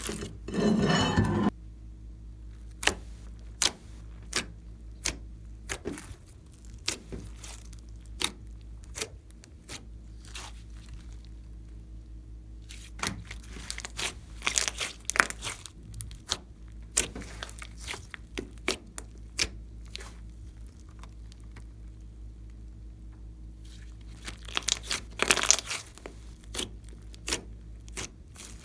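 Glossy slime mixed with clay being squeezed, pressed and folded by hand: scattered sticky clicks and crackles, in denser clusters midway and near the end, over a steady low hum. A louder crackling burst in the first second and a half as the slime is pulled free of its bowl.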